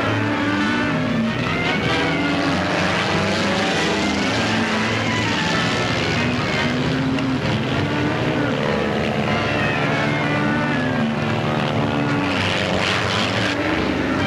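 Stampeding cattle: a continuous rumble of hooves, with cattle bellowing over it in one short rising-and-falling call after another.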